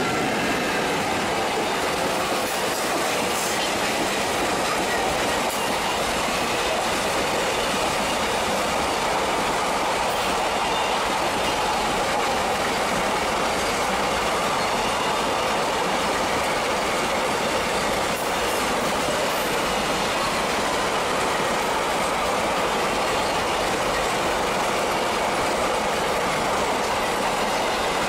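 A long freight train of loaded container wagons passing at speed on an Indian Railways main line: a steady, unbroken rush of steel wheels on rail.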